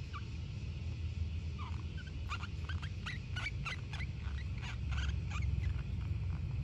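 Sugar glider squeaking: a run of short, high chirps, several a second, starting about a second and a half in and stopping shortly before the end, over a steady low rumble.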